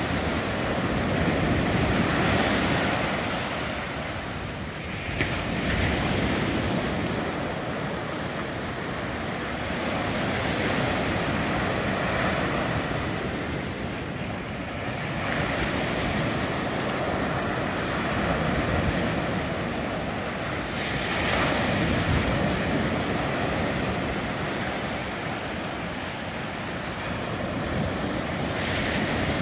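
Ocean surf breaking and washing up the beach. The steady rushing noise swells and eases every several seconds as each wave comes in.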